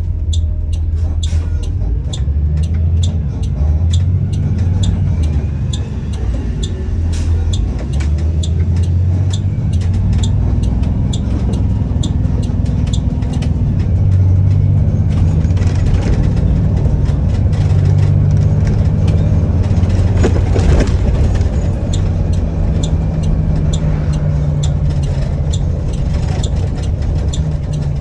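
Blue Bird All American school bus running, its engine giving a loud, steady low rumble, with a regular light ticking, about two to three ticks a second.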